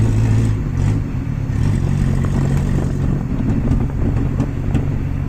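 1988 Volkswagen Jetta engine running as the car is driven, with a loud, tractor-like exhaust note from a disconnected, leaking exhaust. The engine note drops about a second in.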